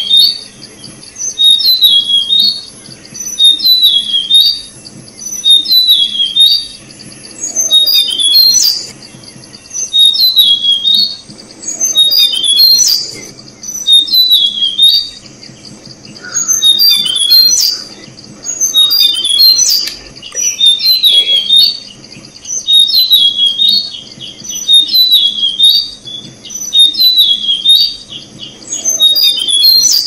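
Tickell's blue flycatcher calling: phrases of short, sliding high chirps repeated about every two seconds, over a steady high-pitched hum.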